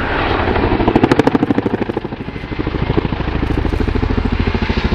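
Boeing CH-47 Chinook tandem-rotor helicopter in flight, its rotor blades beating in a fast, even throbbing chop. It is loudest about a second in, eases a little near the middle and builds again.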